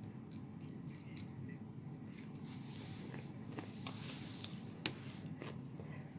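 Faint chewing of a candy-shelled chocolate Hazelnut Spread M&M, with a few small sharp crunches of the shell, the clearest about four and five seconds in, over a low steady room hum.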